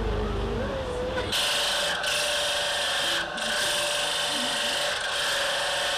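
A bare electric motor driving a grinding wheel, with a workpiece held against it: a steady, hissing grind over a steady motor whine, starting about a second in and easing off for a moment around the middle. Children's voices come just before it.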